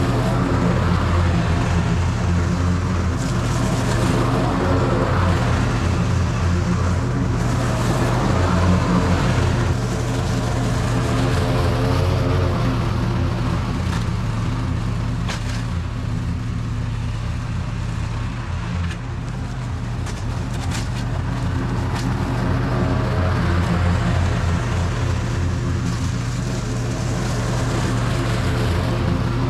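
Toro TimeCutter SS4260 zero-turn mower's engine running steadily while mowing grass, dipping slightly in loudness about two-thirds of the way through, with a few sharp ticks about halfway.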